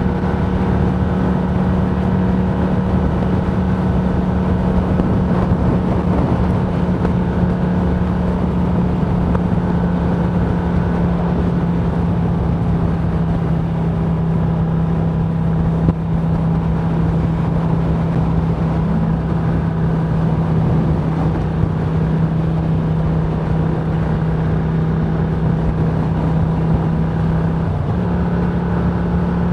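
Motorcycle cruising at a steady speed: a steady drone with wind rushing over the microphone. Near the end the pitch dips slightly and then steps back up.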